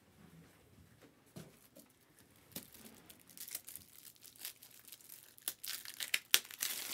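Foil wrapper of a Topps Chrome Black trading-card pack being torn open and crinkled. Quiet at first, then a quick run of crackling tears and crinkles starts about two and a half seconds in and grows louder toward the end.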